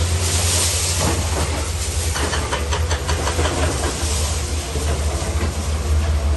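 CAT 320B excavator's diesel engine running under a steady low drone, with a broad hiss and frequent sharp clicks and knocks of the machine at work.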